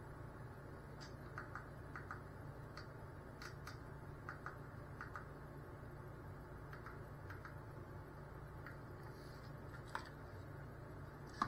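Faint, irregular light clicks and taps over a low steady hum, with a sharper click about ten seconds in.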